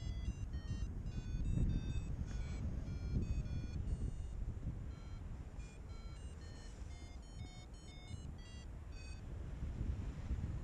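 Wind buffeting the microphone of a paraglider in flight, a gusty low rumble, with short high electronic beeps at changing pitches scattered through it.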